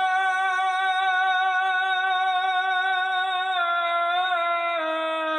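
A man singing an Arabic melody unaccompanied, holding one long note and then stepping down in pitch twice near the end.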